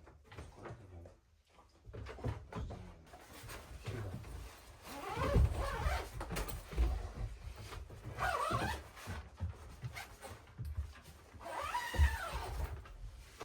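A dog whining three times, each call about a second long, rising and then falling in pitch, with some knocks and thumps between.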